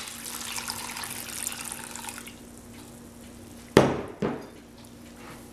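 Tomato juice pouring from a glass measuring cup onto chopped vegetables in a slow cooker crock, a splashing trickle that fades out over the first two seconds. About four seconds in there is a sharp knock, then a lighter one.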